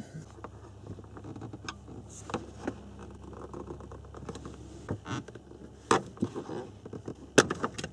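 Hands working a plastic console trim cover loose: scattered light clicks and rattles of plastic, with two sharper clicks about six and seven seconds in.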